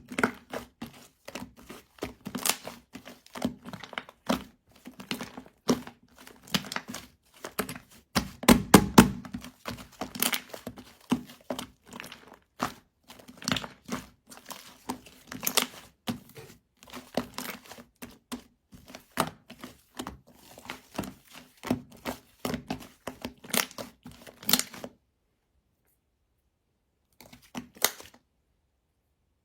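Fluffy shaving-foam slime being squished and poked by hand, giving rapid sharp clicks and crackles. The clicking stops about 25 seconds in, with one brief burst of clicks a couple of seconds later.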